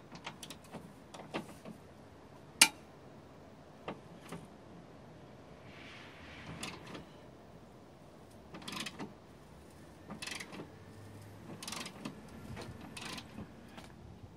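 Hand tools and loose metal parts clicking and knocking as a car battery and its tray are unbolted and lifted out: scattered clicks with one sharp, loud click about two and a half seconds in, and a few short scrapes in the second half.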